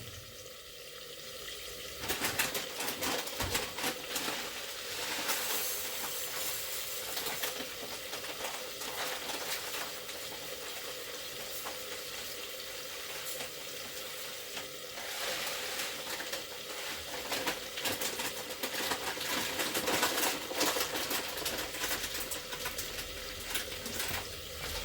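Food frying in hot oil: a steady sizzle and crackle that grows louder about two seconds in.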